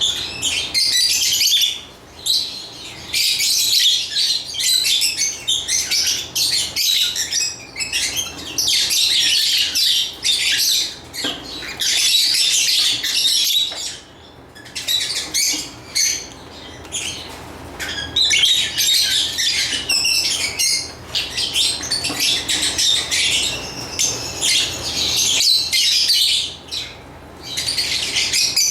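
Lovebirds chirping in a dense, continuous high-pitched chatter, with a few short lulls.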